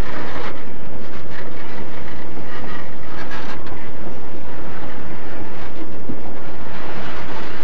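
A train of FEPASA freight boxcars rolling past close by: steel wheels rumbling and clattering over the rail joints in a loud, steady stream.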